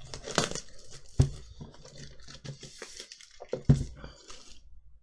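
Cardboard Elite Trainer Box being handled and opened by hand: rustling and sliding of card with scattered small clicks, and two louder knocks, one about a second in and one near four seconds, as the box is set down or bumped against the table.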